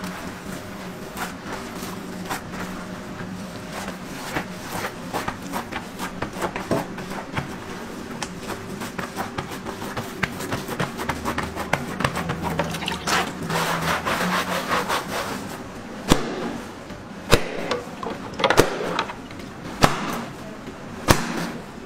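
A large mass of dough being kneaded by gloved hands on a stone counter: soft slapping and crackling over a steady hum. In the last third come sharp knocks about once every second and a bit, as a wooden block comes down on the dough.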